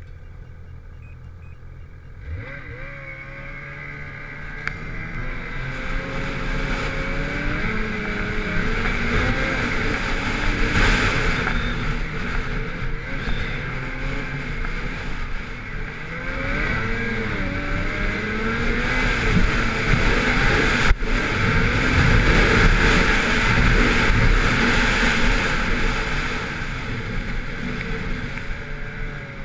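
Ski-Doo MXZ 850 snowmobile's two-stroke engine under throttle, climbing a hill: it comes in about two seconds in with a rising pitch, then rises and falls in pitch and loudness as the throttle is worked, easing off near the end. A single sharp knock about two-thirds of the way through.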